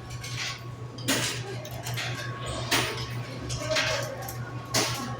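Three sharp clicks and clacks from a drink vending machine, spaced a second or two apart, over the machine's steady low hum.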